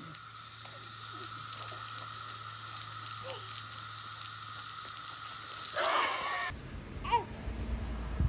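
A jet of water spraying up from the ground, hissing steadily, until it cuts off about six and a half seconds in. A short high child's sound comes just before the cut, and another brief chirp-like sound near the end.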